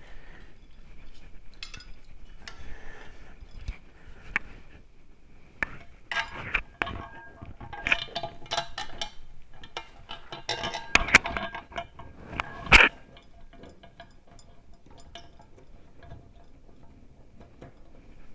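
Scattered metal clinks, taps and rattles as toggle-bolt screws are fitted into the metal wall plate of an articulating TV wall-mount bracket held against the wall. The clinking is busiest in the middle, with one sharp knock about two-thirds of the way through.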